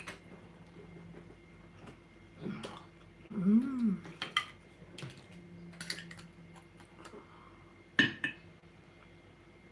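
Cutlery and dishes clinking: a table knife knocking against a plate in a few separate sharp knocks, the loudest about eight seconds in.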